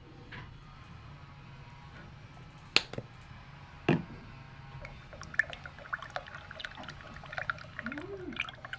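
Liquid dripping and bubbling over a low steady hum, with two sharp clicks about three and four seconds in and a busier run of small pops and clicks from about halfway. A short rising-and-falling squeak comes near the end.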